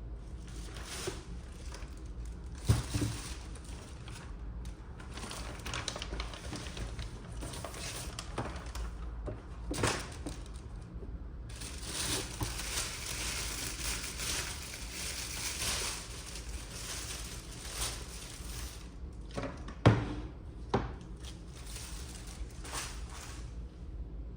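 Packaging crinkling and rustling as a parcel is unpacked by hand, with scattered small clicks and two sharp knocks, one about three seconds in and one near the end.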